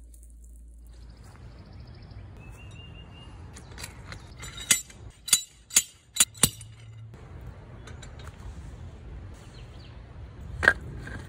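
Five sharp metal clinks about half a second apart, then a single louder clank with a short ring near the end: a steel grill post and its fittings being set up at a fire pit.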